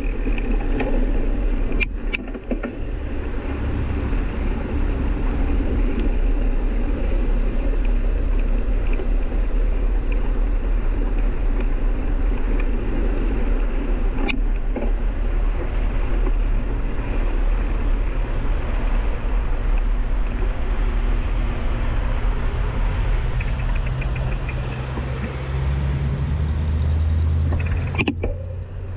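Steady low rumble of travel, wind and road noise on a moving action camera, broken by short dropouts about two seconds in, midway and near the end.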